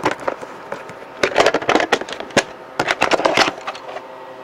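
Plastic VHS rental case being handled, giving quick clusters of clicks and crackles in three bursts that stop about three and a half seconds in.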